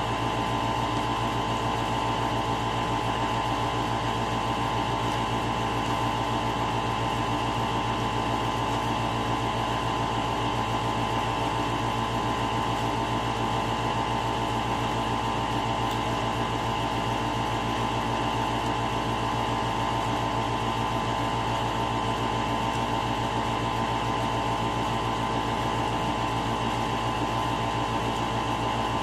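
A steady machine hum, like a running fan, with a constant tone in it and no change in level.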